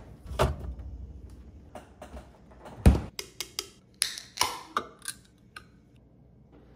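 Kitchen handling sounds: a fridge door pulled open, then an aluminium can of sparkling energy drink set down hard on the stone counter just before 3 s, the loudest knock, followed by a few quick light taps and a hissing crack as the can is opened.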